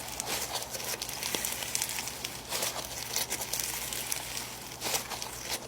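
Snow fizz slime being squished and played with by hand, giving a continuous fine crackling and crinkling with a few louder crackly patches.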